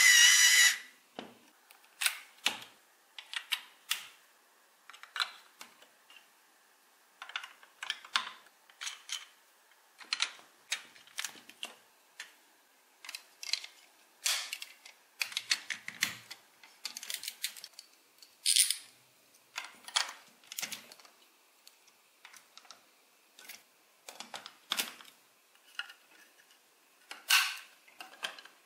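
Plastic building bricks clicking and snapping together as toy pieces are handled and pressed onto a model, in irregular single clicks and quick clusters. A small toy motor's steady whir cuts off within the first second.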